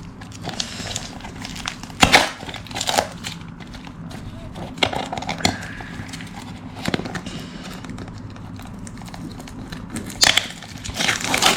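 A package being torn and unwrapped by hand: irregular crinkling and rustling of packaging, with sharper rips about 2 s and 10 s in.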